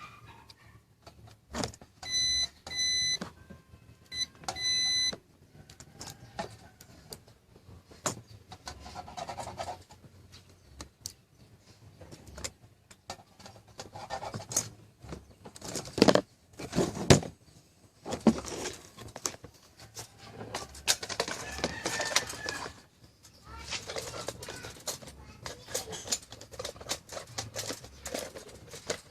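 Two steady high-pitched electronic beeps, each about a second long, about two and four seconds in, then irregular clicks, knocks and rattles of small parts being handled, with a few sharp knocks about sixteen seconds in.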